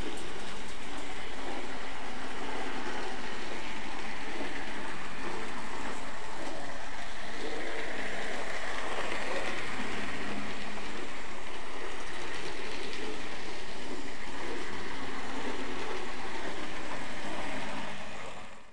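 N gauge model train running along the track: a steady mechanical running noise of the small motor and wheels on the rails, fading out near the end.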